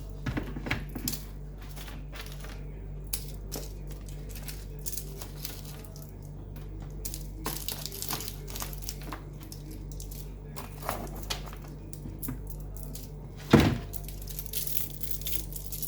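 Candy packets and wrappers being handled and dropped into a pile: scattered clicks, crinkles and light knocks, with one louder thump about thirteen seconds in.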